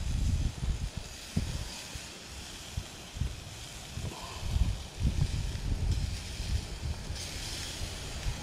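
Wind buffeting the microphone in irregular gusts, over a steady hiss from burger patties sizzling on a small charcoal grill.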